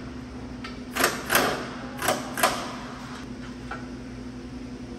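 Sharp clicks and knocks of hand tools working on the car's underside, four louder ones in two pairs about a second and two seconds in, with a few fainter ticks, over a steady low hum.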